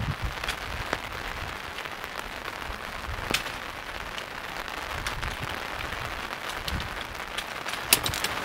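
Steady rain falling on a tent and rain jacket, with a few sharp clicks and taps, the loudest near the end.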